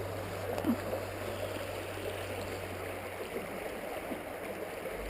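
Small stream running steadily: an even rush of water with a few faint gurgles.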